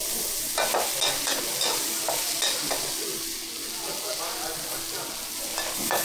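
Food sizzling loudly as it is stir-fried in a hot pan, starting abruptly, with a metal spatula scraping and clanking against the pan at irregular moments.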